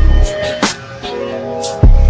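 Background music with a beat: deep bass hits at the start and again near the end, with sharp drum strikes between them.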